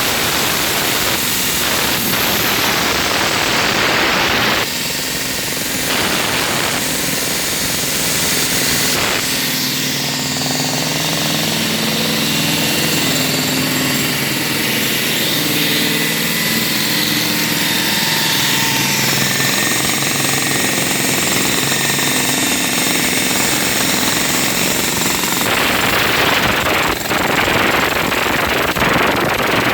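Jackhammer breaking concrete, hammering continuously. A steady engine drone runs underneath it through the middle stretch.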